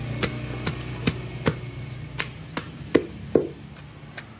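Wooden pestle pounding chunks of raw fruit and sambal in a large wooden mortar (lesung). It makes a steady run of dull knocks, about two to three a second, with two louder strokes near the end.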